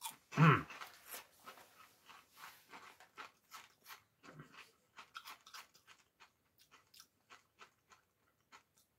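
Crunchy corn snacks being bitten and chewed close to the microphone: a rapid run of crisp crunches. A short hum-like voice sound from the eater about half a second in is the loudest moment, with a fainter one around four seconds in.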